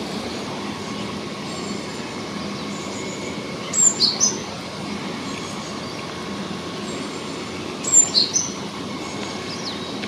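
Two short bursts of sharp, high-pitched bird calls about four seconds apart, each a quick run of three falling notes, over a steady background rumble like distant traffic or trains.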